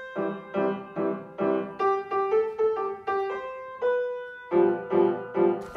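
Background music: a piano-like keyboard playing repeated chords in a steady rhythm, each chord ringing and fading before the next.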